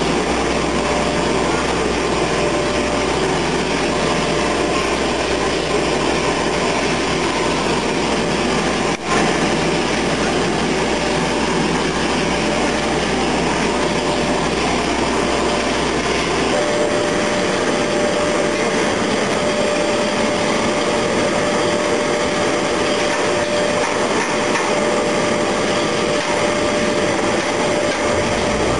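Steady drone of heavy machinery running, with a constant whining tone over it; a deeper hum underneath drops out about halfway through.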